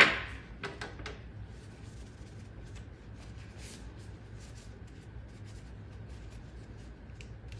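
Paper towel rubbing and rustling on the metal of a Winchester SX4 shotgun's trigger group as it is wiped clean, with one sharp click right at the start.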